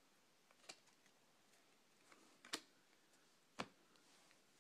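Near silence broken by three faint clicks, about a second apart, from hands handling trading cards and the cardboard card box.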